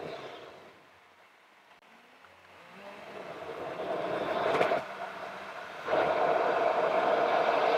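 Car driving noise, tyres on the road and the engine, played back at four times speed: an even rushing noise that fades almost away about a second in, builds back up, and returns suddenly to full level near the end.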